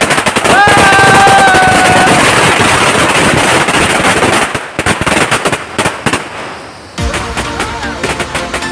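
A long string of firecrackers (a 1000-wala ladi) going off in a dense, rapid crackle of bangs, with a high steady whistle for about a second and a half near the start. The bangs thin out after about four and a half seconds, and background music comes in suddenly about seven seconds in.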